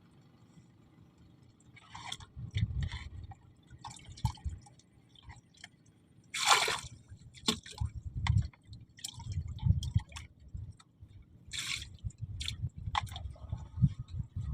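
Water splashing and sloshing in irregular bursts, with low thumps and one larger splash about six and a half seconds in.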